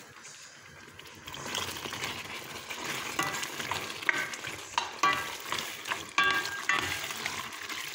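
A spatula stirring penne through a thick, bubbling cream sauce in a stainless steel pot, starting about a second and a half in. Over the sizzle come a series of sharp scrapes of the spatula against the pot in the second half.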